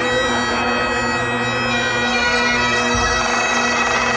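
Several Great Highland bagpipes played together by a pipe band: a steady drone under the chanter melody.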